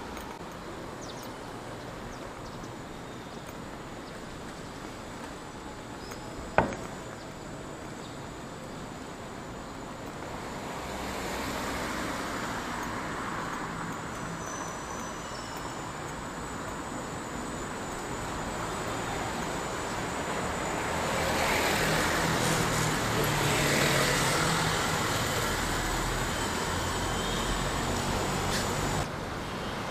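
City street traffic: cars and motorcycles passing, getting louder from about ten seconds in and loudest a little past twenty seconds. A single sharp click about six seconds in.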